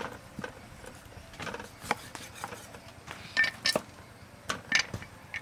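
Scattered knocks and clicks of a cleaver and knife on a thick wooden chopping block while a cow's leg is cut up and the tools are set down, a few irregular strikes a second apart rather than steady chopping.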